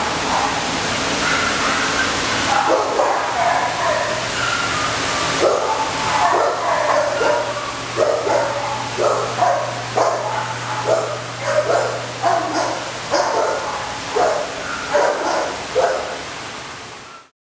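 Dogs barking in shelter kennel runs: overlapping barks and yips at first, then a run of separate barks about two a second from about five seconds in. The sound cuts off just before the end.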